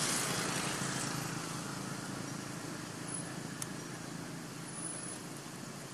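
A road vehicle passing, loudest at the start and fading away as it recedes, with a short click about three and a half seconds in.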